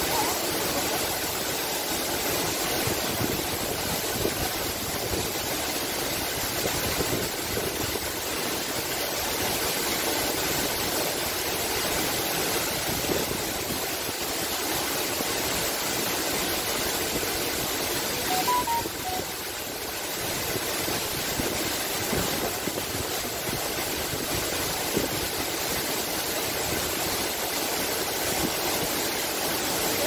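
Two tall waterfalls plunging onto a shallow rock pool, a steady, even rush of falling water.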